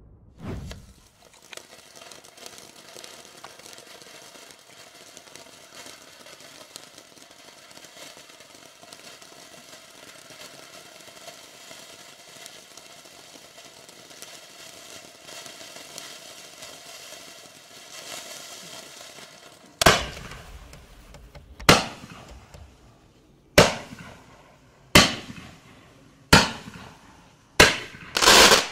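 A small fireworks cake, the 'Skipper' P6710, burning: its fountain gives a steady spraying hiss with faint crackle. About twenty seconds in, the cake's 0.8-inch shots start firing one after another as sharp bangs, roughly one every one and a half to two seconds.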